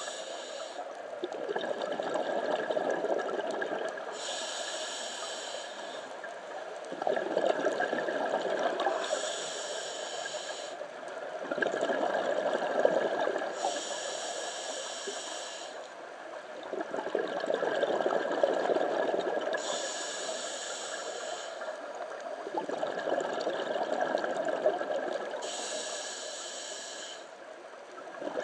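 Scuba diver breathing through a regulator underwater: a hissing inhale about every five seconds, each followed by a long bubbling exhale, six breaths in all.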